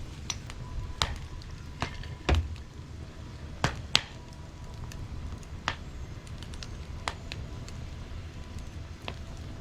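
Wood fire crackling in a steel fire pit: irregular sharp pops and snaps, loudest a little after two seconds and near four seconds, over a low steady rumble.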